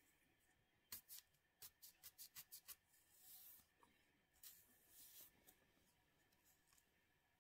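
Faint scratching at thick psoriasis scales on the scalp. About a second in comes a quick run of about nine small crackling clicks, then softer rasping scrapes.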